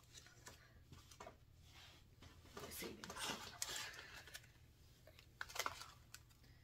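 Faint rustling and light clicks of paper dollar bills and a plastic cash envelope being handled and drawn out of a ring binder.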